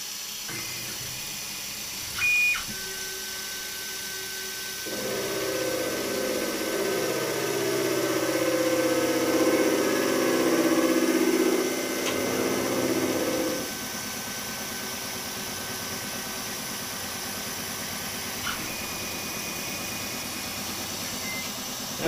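Milling machine face-milling a cast aluminium part, with air-mist coolant hissing steadily. The cutting noise rises about five seconds in and stops around fourteen seconds, under a steady high whine that ends with a click near the end. A short electronic beep sounds about two seconds in.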